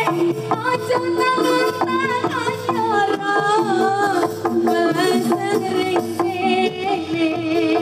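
Live East Javanese jaranan music: a singing voice with wavering vibrato over held instrument tones and steady drumming.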